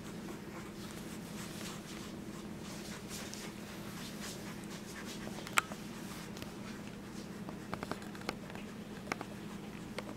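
Faint scratchy rustling of a fleece blanket as a two-week-old Boxer puppy shifts and crawls on it, over a steady low hum. A few small sharp clicks, the loudest about five and a half seconds in.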